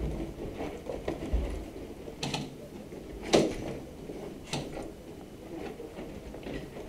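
Airsoft players' footsteps and gear rattling as they move over a rubble-covered concrete floor, with three sharp clicks about two, three and four and a half seconds in, the middle one loudest.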